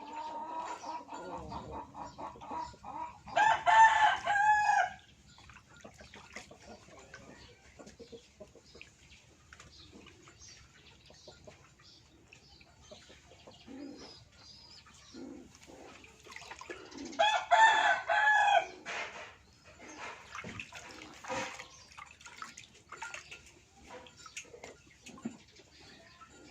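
A rooster crowing twice, each crow about a second and a half long, with softer clucking and scattered clicks between the crows.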